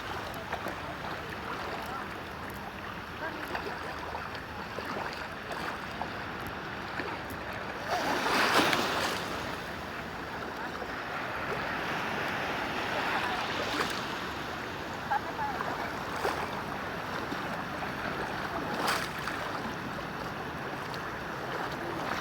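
Sea waves washing on the shore in a steady rushing hiss, swelling louder about eight seconds in, with wind buffeting the microphone and a few brief ticks.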